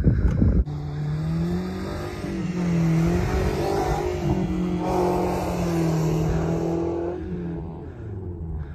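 Toyota Camry engine revving hard and held high, its pitch rising and falling as the car is thrashed across a grass field, then dying away near the end. A short rush of noise opens the sound. The clutch is being abused until it smokes.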